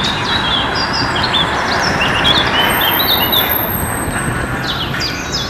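Tram passing close by on its rails, a steady noisy rumble of wheels and running gear, with small birds chirping over it.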